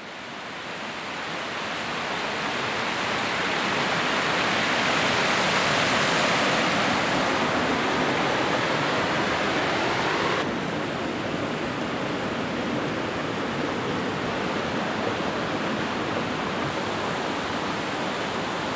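Steady rush of flowing river water, fading in over the first few seconds; about ten seconds in it drops suddenly to a slightly quieter, even rush.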